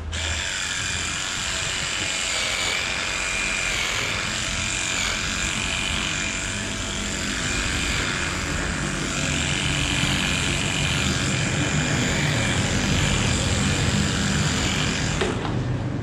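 A steady motor running with a high, even whine over a broad hiss, starting abruptly and cutting off suddenly about fifteen seconds in.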